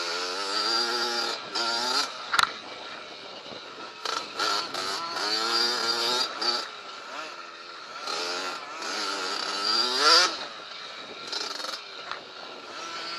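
Children's dirt bike engines revving, the pitch climbing and falling back several times as the throttle is worked, with a sharp knock about two and a half seconds in.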